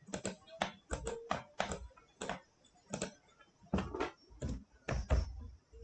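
Computer keyboard and mouse clicking: a string of short, irregularly spaced clicks while a value is entered.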